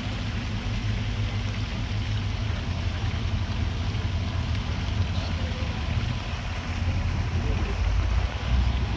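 Marina background noise: a steady low rumble with a faint hiss over it, with no single event standing out.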